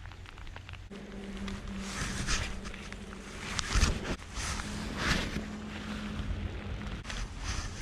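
Wind buffeting the microphone in gusts, over a steady low engine hum that drops out briefly in the middle.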